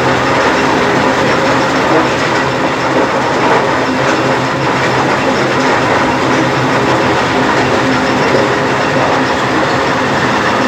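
Stone crusher plant running: a loud, steady mechanical din with a constant hum underneath, unchanging throughout.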